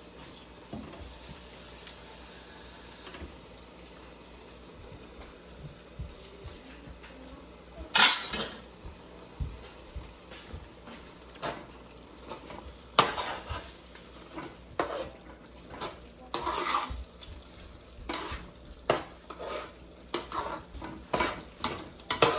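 A metal spoon stirring in a cooking pot, clinking and scraping irregularly against its sides, over a faint sizzle from the pot. For the first several seconds only the faint sizzle is heard; the clinks start about eight seconds in and come often from then on.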